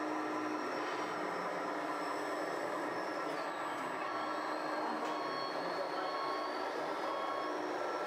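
Radio-controlled model trucks running: a steady mechanical hum with a high motor whine that falls in pitch about three and a half seconds in and rises again near the end.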